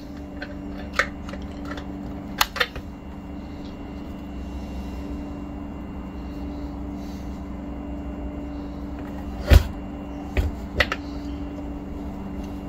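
Scattered clicks and knocks of small parts being handled against a chainsaw's housing as its oil pump is worked back into place, the loudest a single knock about three-quarters of the way through. A steady low hum runs underneath.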